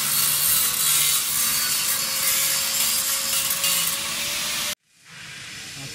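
Flux-cored arc welding: the steady crackling hiss of the arc, with a faint steady hum underneath. It cuts off abruptly about four and a half seconds in, and quieter shop noise follows.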